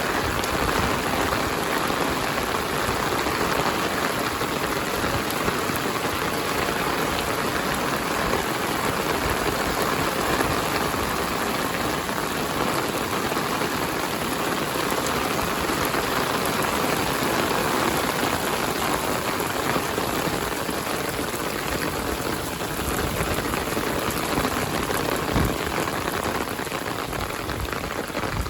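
Heavy rain falling steadily, a dense even patter of drops hitting the ground.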